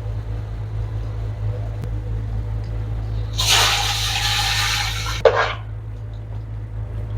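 Water running or pouring for about two seconds, over a steady low hum, and ending sharply with a short knock.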